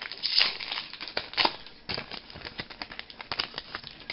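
Trading cards being handled and flipped through by hand: a quick, uneven run of small clicks and rustles of card stock, with two sharper clicks in the first second and a half.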